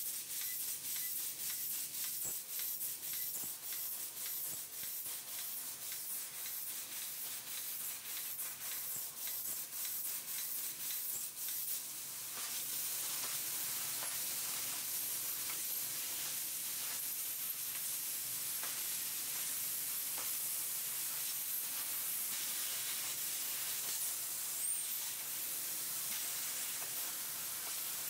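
12 kW fiber laser cutting machine cutting steel sheet: a high-pitched hiss and sizzle from the cut. For about the first twelve seconds it comes in quick repeated spurts, then it turns to a steadier, slightly louder continuous hiss.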